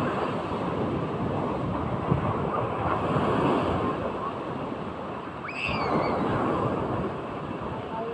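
Large sea waves surging and breaking in the surf, with wind buffeting the microphone. A brief high-pitched cry rises and falls a little past the middle.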